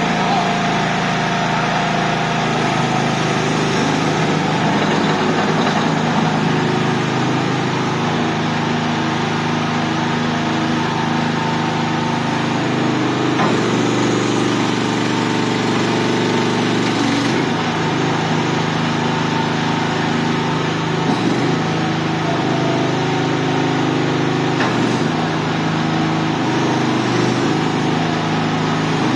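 Small engine of a mini crawler skid steer loader running steadily. Its pitch drops for a few seconds about midway, then comes back up.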